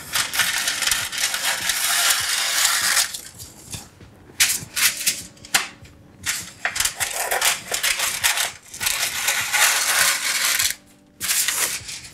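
Parchment paper being cut to size with scissors and handled: a steady rustle for the first few seconds, then a run of sharp crinkles and snips.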